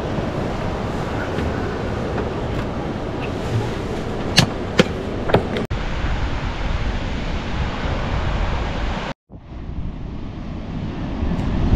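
Wind rumbling on the microphone over breaking surf, with three sharp clicks around five seconds in. The sound cuts out briefly about nine seconds in, then the wind picks up again.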